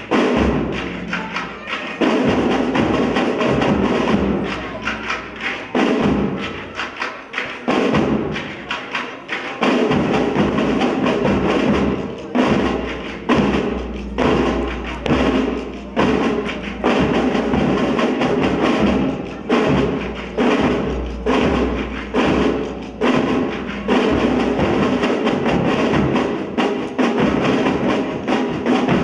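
Pipe band performing, with drums beating in rhythm; in the second half the beat settles into about one stroke a second.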